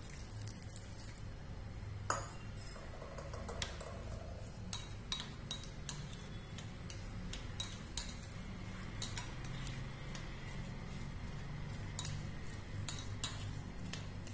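Steel spoon stirring a thick semolina batter in a glass bowl, clinking against the glass at irregular intervals many times.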